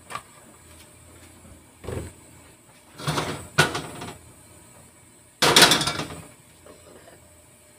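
Stainless steel wok being handled on a gas stove: a few separate knocks and clattering metal bursts as it is lifted, tilted and set back on the burner grate. The loudest comes suddenly about five and a half seconds in.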